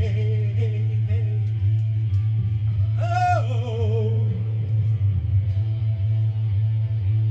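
Rock music on electric guitar over a steady low drone, with a man singing one held, wavering note about three seconds in.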